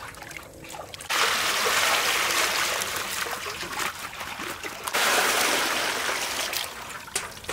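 Water running in a steady stream in two spells, each starting and stopping suddenly: the first from about a second in for nearly four seconds, the second following at once for close to three seconds.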